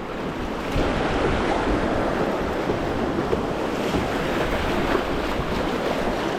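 Whitewater of a river rapid rushing around a canoe as it runs a wave train. The sound grows louder about a second in and then stays steady.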